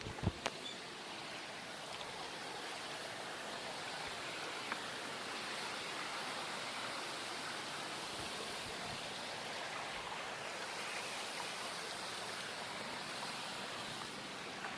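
Steady rush of falling water from a waterfall, an even unbroken roar. Two brief knocks come right at the start.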